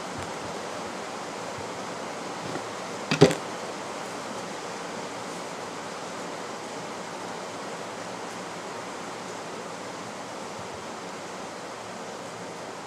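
Steady background hiss, with one sharp knock on the wooden cutting board about three seconds in.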